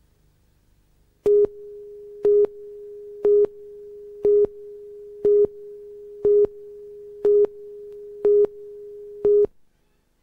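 Videotape countdown leader tone: a steady tone with a much louder beep of the same pitch once a second, nine beeps in all. It starts about a second in and cuts off near the end.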